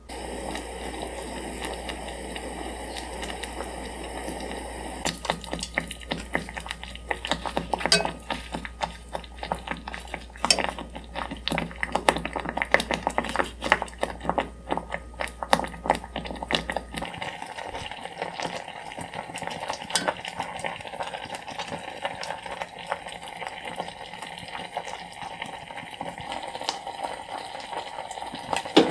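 Sugar syrup with sliced orange simmering in a saucepan over a low gas flame. A steady hiss at first, then a dense run of small pops and crackles from the bubbling syrup, easing to a softer, steady bubbling with fewer pops for the last ten seconds or so.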